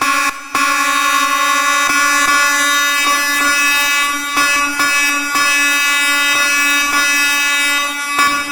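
School fire alarm horn, set off from a pulled pull station, sounding a loud buzzy tone. After a brief break right at the start, it sounds without a break.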